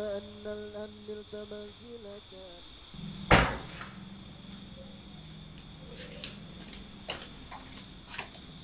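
Night crickets chirping steadily in high continuous tones. A held melody fades out over the first two seconds or so. A single loud thump comes about three seconds in, followed by a few scattered light taps.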